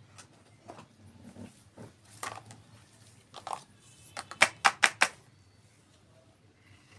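Small pieces of a toy kitchen set handled and tapped, with scattered light knocks and rustles, then a quick run of about six sharp clicks near the middle.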